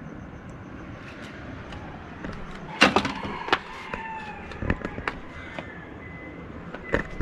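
Scattered sharp knocks and clicks, the loudest about three seconds in, over faint outdoor morning ambience with a few distant animal calls.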